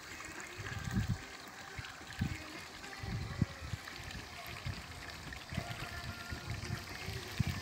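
Water trickling into a freshly filled, liner-lined garden pond, with irregular low buffeting from wind on the microphone.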